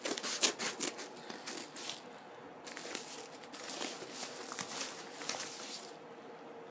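Yellow padded paper mailer envelope being opened by hand: sharp crackling and tearing of the paper in the first second, then rustling and crinkling as the tape inside is pulled out.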